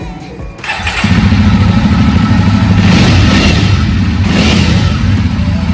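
Jawa 42's 300 cc single-cylinder engine running through its dual silencers, freshly started. It dips briefly about half a second in, then is revved, with two throttle blips around the middle.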